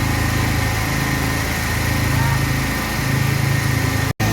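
A small engine running steadily at constant speed, easing slightly for a couple of seconds midway. The sound drops out for an instant near the end.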